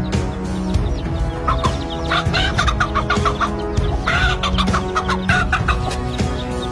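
Hen clucking and squawking in alarm in repeated bursts while defending her chicks from an attacking eagle, over background music with sustained notes.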